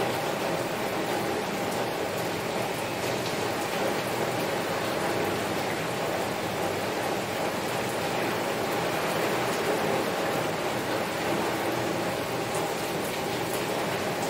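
Heavy rain falling on a window: a steady, even rush of rain with a few faint drop ticks over it.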